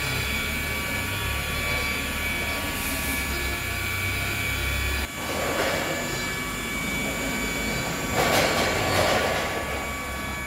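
Electric rotary polisher running with a steady high whine as its pad buffs a painted truck body panel. The sound dips briefly about five seconds in, and louder rushing swells come and go near the end as the pad works the paint.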